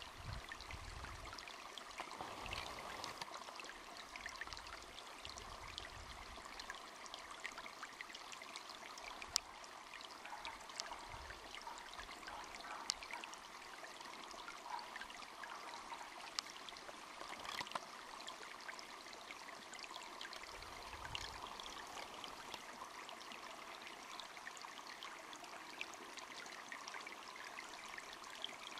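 Steady, faint rushing noise with scattered small clicks, and a few brief low rumbles in the first several seconds and again about two-thirds of the way through.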